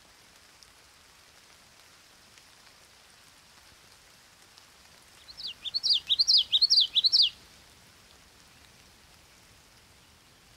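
Light rain falling as a faint, steady hiss. About halfway through, a songbird sings a quick two-second phrase of about ten rapid sweeping notes, clearly louder than the rain.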